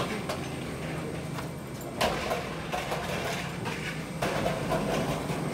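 Background noise of passengers getting off an airliner: a steady low hum with scattered knocks and clatter, the sharpest knock about two seconds in.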